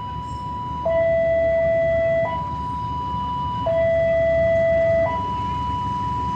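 Two-tone warning siren switching back and forth between a low note and a higher note, each held about a second and a half, the low note louder.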